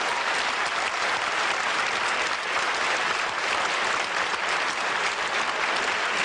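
Theatre audience applauding in steady, sustained clapping.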